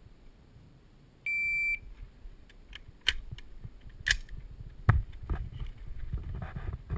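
Shot timer's start beep: one steady electronic tone lasting about half a second, a little over a second in. Several sharp knocks and clicks follow over the next few seconds.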